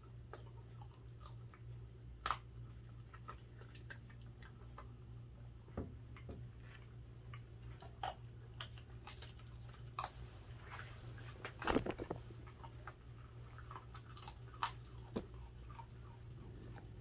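Dachshund chewing and biting raw chicken: irregular crunches and wet clicks, with the loudest burst of crunching a little past two-thirds of the way through.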